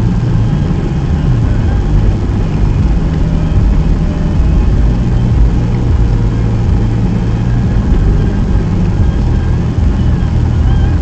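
Car being driven, its engine and road noise a steady low rumble.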